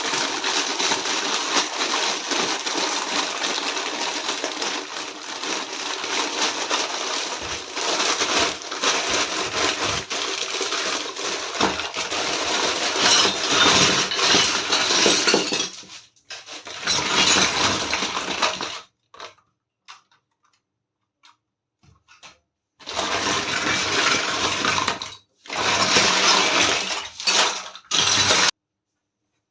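Crinkling plastic packaging and small clinking miniature toy kitchen pieces being handled, continuous for the first half and then in short stretches that start and stop abruptly.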